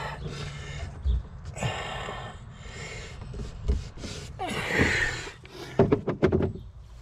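A man breathing heavily and laboriously, several loud breaths in and out, the puffing of someone with lung problems working hard. A few low knocks of handling come between the breaths.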